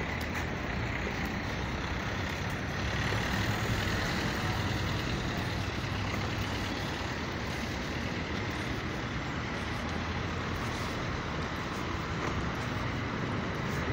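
Steady street noise of road traffic, an even rumble with no single vehicle standing out.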